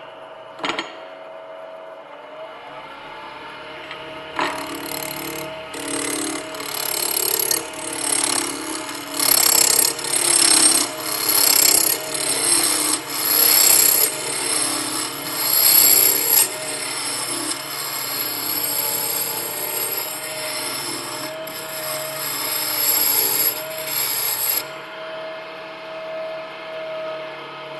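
Wood lathe spinning a blank while a spindle roughing gouge cuts it down to a cylinder: rough, scraping cuts that swell and fade with each pass along the wood, over the lathe motor's steady hum. The cutting starts about four seconds in and stops a few seconds before the end, leaving the motor running alone.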